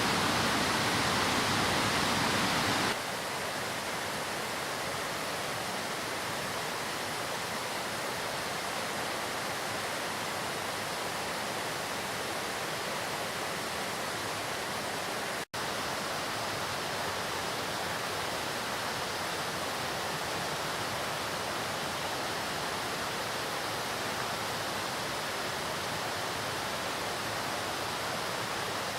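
Rushing water of a waterfall and its river, a steady rush that is louder and fuller for about the first three seconds, then steps down to a softer level. It cuts out for an instant about halfway.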